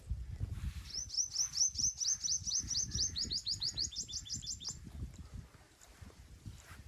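A small bird sings a rapid trill of about twenty short, high notes, each slurring downward, starting about a second in and stopping a little before five seconds. Underneath are low, dull, irregular thumps of hands patting and pressing during a massage, strongest in the first second.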